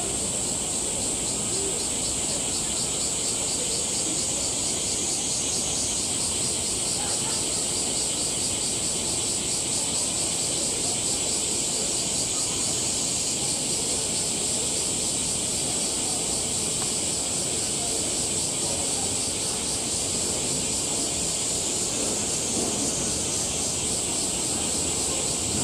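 Steady, high-pitched chorus of cicadas with a fine, fast pulsing, over a low murmur of background noise.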